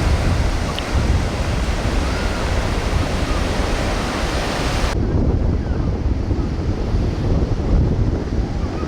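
Surf breaking on a beach with strong wind buffeting the microphone in gusts. The high hiss of the surf cuts off abruptly about five seconds in, leaving the wind rumble and lower wash.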